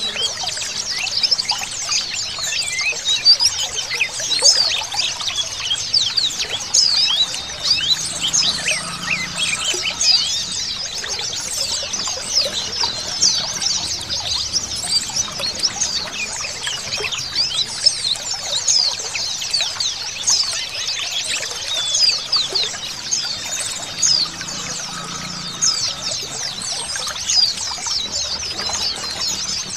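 A crowd of white-eyes chirps and twitters in quick, overlapping high calls. Under them runs a steady trickle of running water.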